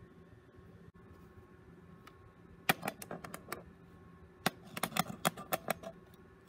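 Steel beads of a magnetic tracing board clicking into their holes under a magnetic stylus as a letter is traced: a short run of sharp clicks, then a quicker run of a dozen or so near the end.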